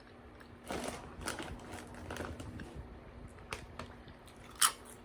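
Close-miked eating sounds: chewing with soft crackly mouth noises and small clicks, and one sharper click near the end.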